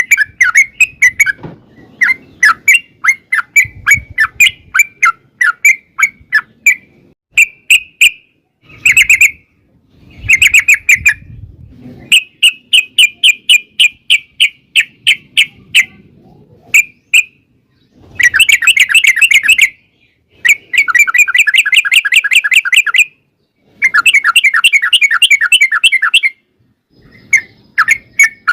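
Yellow-vented bulbul (trucukan) singing: loud, fast chattering phrases of short bubbly notes, several of them running into long rapid trills of about two seconds, separated by brief pauses.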